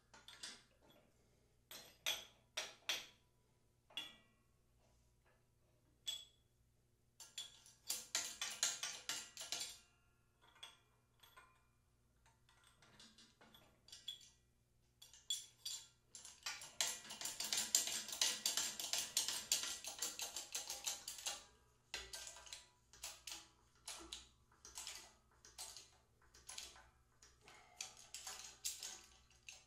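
Bottle jack of a 12-ton hydraulic shop press being worked by hand: irregular metal clicks and knocks, with a long run of rapid clicking lasting several seconds past the middle.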